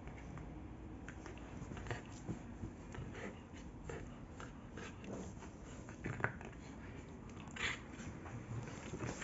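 A dog chewing and biting a braided fabric rope toy: irregular soft clicks and crunches of its teeth on the knotted fabric, a few sharper ones among them.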